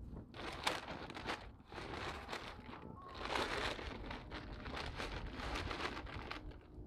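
Chicken feed being scooped out of a feed sack, with the bag crinkling and rustling and the pellets rattling, in uneven bursts that die down near the end.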